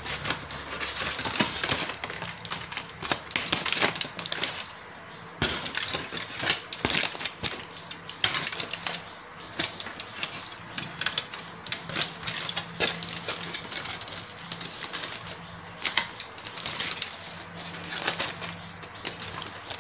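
Aluminium foil crinkling and crackling in quick, irregular bursts as hands pull open and crumple a foil packet.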